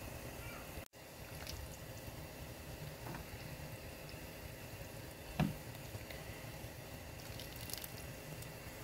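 Tuna kimchi stew bubbling in a pot, a low steady simmer with faint pops, and one louder wet squelch about five and a half seconds in.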